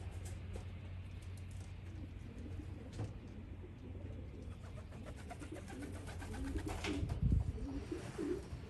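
Domestic racing pigeons cooing, with a brief clatter about seven seconds in.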